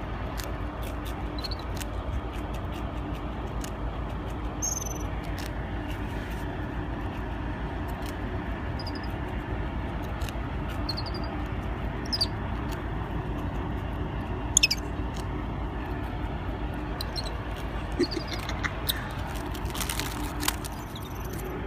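Ground squirrels giving short high chirps and squeaks, scattered through, over a steady low rumble, with small clicks here and there.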